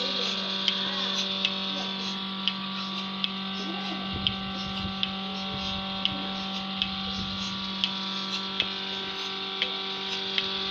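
Small bucket milking machine running: its 0.5 hp electric motor and oil-lubricated vacuum pump give a steady hum, while the pulsator on the milk can's lid clicks sharply and regularly, about once every three-quarters of a second to a second.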